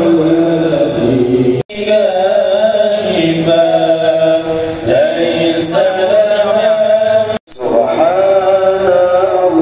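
Quran recitation chanted by a single voice in long, melodic held notes with ornamented pitch bends. It drops out abruptly twice, about a second and a half in and again about two seconds before the end.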